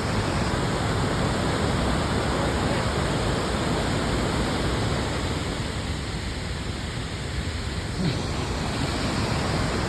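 A steady rushing noise, loudest in the low end and without any rhythm or tone, dipping slightly a little past the middle.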